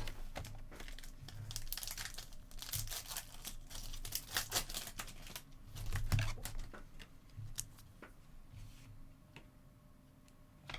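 Trading-card pack wrappers being torn open and crinkled, a dense crackling rip that thins to a few faint crinkles after about seven seconds.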